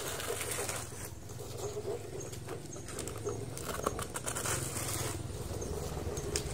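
Plastic toy excavator worked by hand, its bucket tipping soil into a toy dump truck's bed and then scraping and scooping dirt, with a few light plastic clicks. The dirt pours and scrapes in two hissy stretches, near the start and again past the middle, over a steady low rumble.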